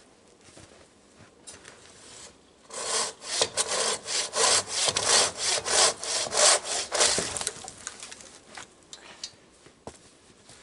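Silky Katana Boy 650, a large folding hand saw, cutting through the trunk of a dead standing tree in fast, even strokes, about three a second. The sawing starts a few seconds in and stops about seven seconds in.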